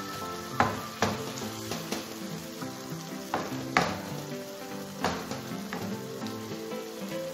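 Chicken pieces and grated tomato sauce sizzling in a frying pan while a wooden spatula stirs them, scraping and knocking against the pan every second or two. Light background music plays underneath.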